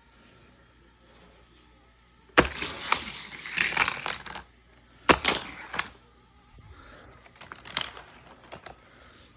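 Toy packaging being opened and handled: two sharp snaps or knocks, each followed by a second or two of rustling, then a few lighter clicks near the end.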